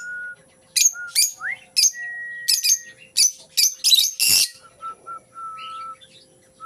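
A pet bird chirping: a quick series of short, sharp chirps with a harsher call about four seconds in, between held whistled notes.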